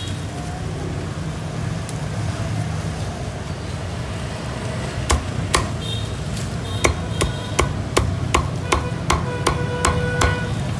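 Cleaver chopping crisp-skinned roast pork on a round wooden chopping block: about five seconds in, a run of about a dozen sharp chops, two to three a second, each with a short metallic ring from the blade, over a steady low rumble.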